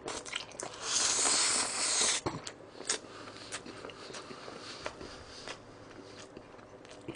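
A person slurping a mouthful of noodles loudly for about a second, starting about a second in, then chewing with a full mouth: a scatter of short wet clicks.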